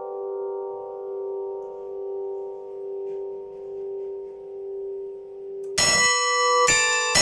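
Small electric carillon of eight Paccard-cast church bells tuned to a G major diatonic scale. The last struck bell note hangs and slowly dies away, its hum wavering in loudness. About six seconds in, the hammers strike again, with two sharp ringing bell strokes close together.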